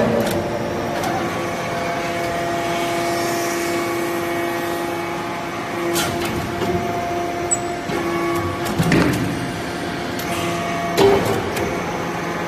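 Hydraulic briquetting press running: a steady hum from its hydraulic power unit, broken by a few sharp knocks and clunks as the press ram cycles, the loudest about eleven seconds in.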